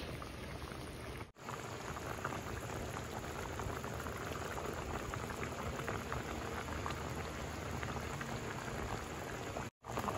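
Estofado stew bubbling steadily in a stainless steel pot, with a fine crackle of bursting bubbles. The sound cuts out for an instant twice, about a second in and near the end.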